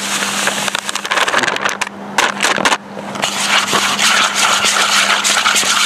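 Dry fishing bait poured out of a crinkling plastic bait bag into a plastic bowl, with crackling and rustling; after a short pause about three seconds in, hands mix and rub the bait in the bowl with a steady rustle.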